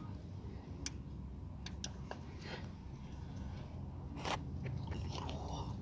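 Small plastic packet of gasket glue crinkling and crackling as it is handled and opened by hand, with scattered sharp clicks and one louder snap about four seconds in.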